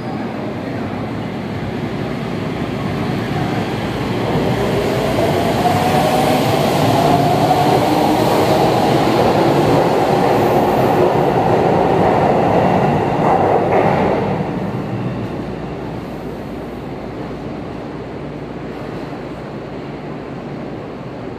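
Sendai Subway Namboku Line 1000-series train pulling out of the station: its motors whine in rising tones as it accelerates, over the rumble of wheels on rail. The sound grows louder for several seconds, then falls away about fourteen seconds in as the train leaves into the tunnel.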